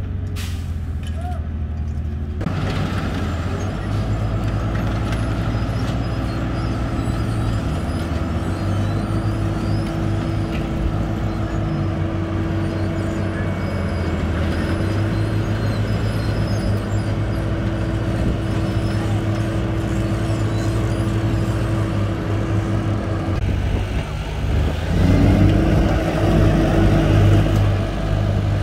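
Diesel engines of road-paving machinery running steadily, an asphalt paver's among them: a continuous low drone with a steady whine above it. Near the end the machine sound changes, and a whine rises in pitch over a heavier engine note.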